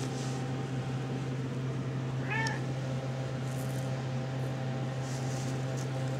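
A 7½-week-old RagaMuffin kitten mews once, a short high call about two and a half seconds in, over a steady low hum.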